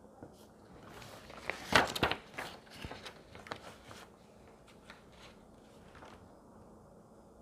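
Plastic clicks and knocks of a We R Memory Keepers planner punch board being pressed to punch disc-binding holes in a sheet of paper. The loudest cluster comes about two seconds in, followed by a few lighter handling clicks.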